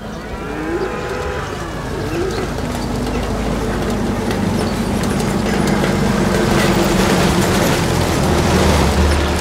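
Cattle mooing, several moos with one long drawn-out call. A low engine rumble comes up near the end.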